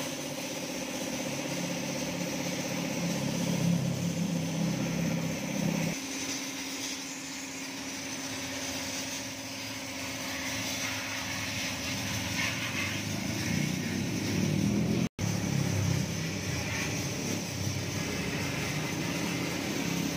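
A motor running steadily, its hum shifting to a different pitch about six seconds in, with water spraying from a hose. The sound cuts out for an instant about fifteen seconds in.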